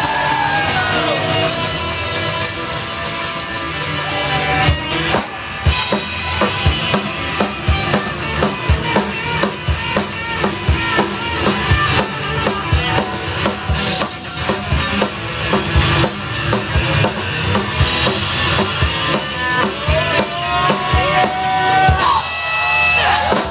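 Rock band playing an instrumental passage: drum kit and electric guitar, with the drums hitting a fast, steady beat from about five seconds in.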